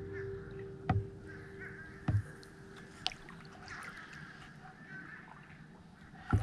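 Crows cawing over still water, with the light trickle of a kayak paddle moving. Three sharp knocks stand out as the loudest sounds. A soft held music chord fades out about halfway through.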